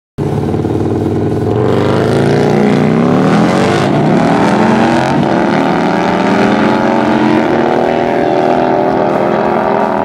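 Harley-Davidson Low Rider S with a 135-cubic-inch Moonshine Horsepower M8 V-twin and Feuling exhaust accelerating at full throttle through the gears. The engine starts suddenly, climbs in pitch, drops back at upshifts about two and five seconds in, then climbs slowly again.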